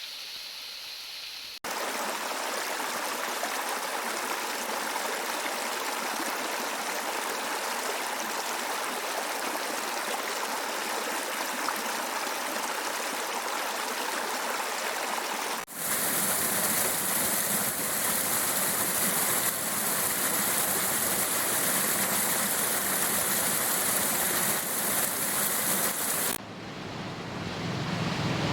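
Rushing water from a waterfall, a steady full rush. The sound changes abruptly about two seconds in, again around sixteen seconds in when it gets louder and brighter, and once more near the end, as the recording cuts between takes.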